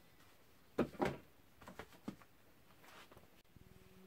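Containers being set down and shuffled on a pantry shelf: a few light knocks and clicks. A faint low steady hum starts near the end.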